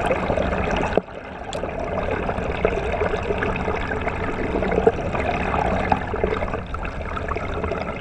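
Water gurgling and sloshing around a submerged camera, heard muffled underwater. It dips briefly about a second in, then carries on steadily.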